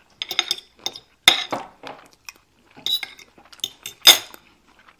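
Metal spoon and fork clinking against a dinner plate while eating: several separate sharp clinks, the loudest about four seconds in.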